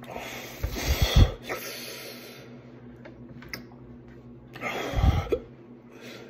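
A man's heavy, noisy breaths or gasps through the mouth, two loud ones about a second in and about five seconds in. His mouth is burning from the pepper heat of the Paqui One Chip.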